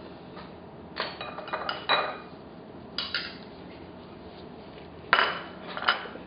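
Cutlery clinking and scraping against plates and serving dishes while food is dished out, in short clusters of clinks about a second in, at three seconds and near the end, the loudest just after five seconds.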